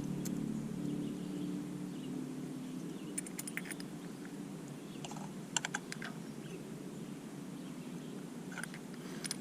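Light clicks and taps of small parts being handled while a new carburetor fuel shutoff solenoid and its washer are fitted, coming in a few quick clusters. A low hum fades out over the first two seconds or so.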